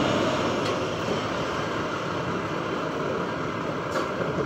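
International garbage truck's diesel engine running steadily, with two light knocks, one about a second in and one near the end.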